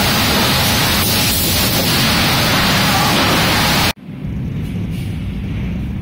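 Loud, steady din of running sawmill machinery at the log conveyors, an even rushing noise with no clear rhythm. About four seconds in it cuts off abruptly to a much quieter low hum.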